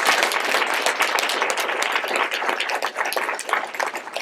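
Audience applauding, a dense patter of many people clapping that thins to scattered claps toward the end.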